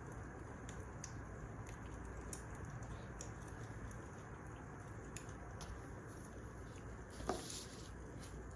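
Wood fire crackling: a steady low rush with scattered irregular pops and snaps, one louder pop about seven seconds in.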